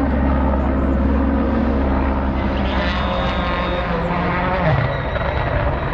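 Rally car engine running, a steady drone with some shifts in pitch and a brief swell near the end.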